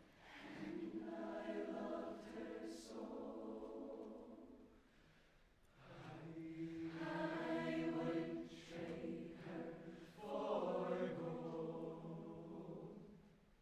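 Show choir singing softly in held chords, in three phrases with short pauses between them.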